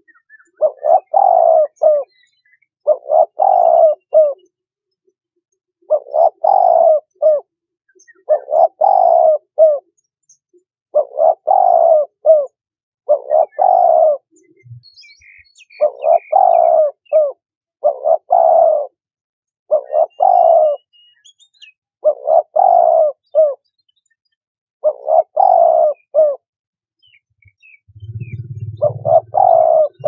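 Turtle dove cooing: a short phrase of several coos, each dropping a little in pitch, repeated about every two seconds.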